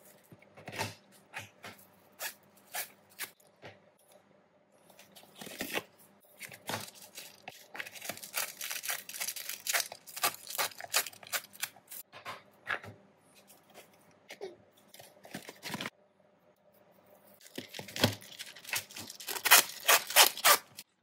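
Rolls of cling film, parchment and deli paper being loaded into white plastic food wrap dispensers with built-in cutters. Repeated clicks and knocks come from the plastic lids and rolls, with stretches of rustling and tearing as film and paper are pulled out and cut. It is loudest near the end.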